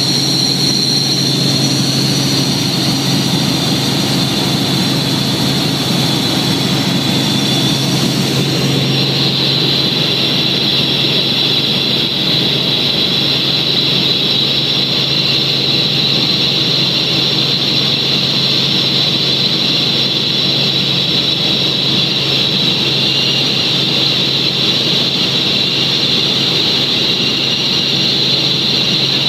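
Helicopter engine and rotor noise heard from inside the cabin in cruise flight: a loud, constant drone with a steady high whine over it. The highest hiss drops off about nine seconds in.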